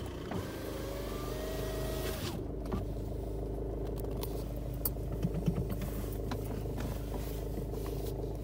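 Ford Focus 1.5 EcoBlue four-cylinder diesel engine idling steadily just after a start, heard from inside the cabin. A faint tone rises slightly over the first two seconds, and a few light clicks come later.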